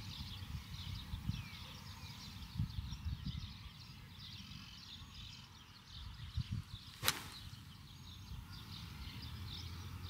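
Golf club striking the ball off the fairway: one sharp crack about seven seconds in. Birds chirp throughout, with a low wind rumble on the microphone.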